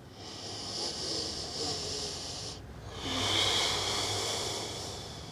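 A woman breathing audibly close to the microphone: two long, slow breaths of about two seconds each, with a short pause between, the second louder.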